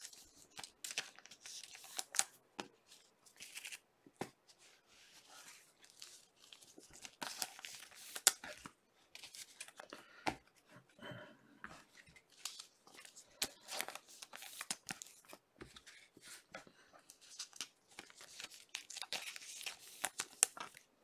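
Trading cards and their clear plastic sleeves being handled by hand: irregular crinkling and rustling of plastic, with light clicks as the cards slide and tap against each other.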